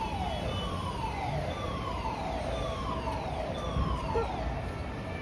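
Building fire alarm sounding its evacuation tone: a falling sweep, high to low, repeating about once a second.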